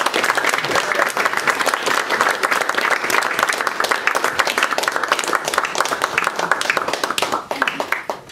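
Audience applauding, a dense clapping of many hands that thins out near the end.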